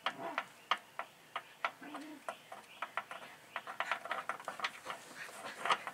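A loose steel washer clicking against a mower-deck blade spindle shaft as it is rocked to and fro by hand, in short sharp clicks about three a second, quicker in the second half. The clicking is the play of a sloppy, oversized washer on the 3/4-inch shaft.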